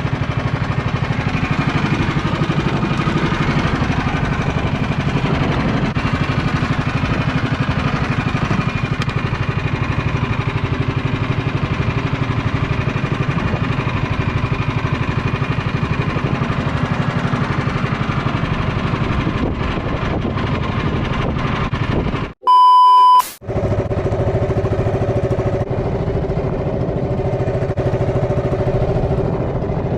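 A small engine running steadily. About two-thirds of the way through, the sound cuts out briefly and a loud electronic beep plays. The engine then carries on with a higher steady hum.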